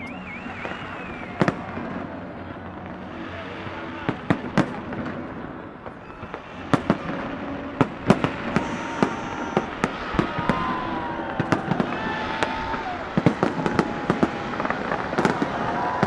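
Fireworks exploding in an irregular string of sharp bangs: only a few in the first six seconds, then coming thick and fast through the rest.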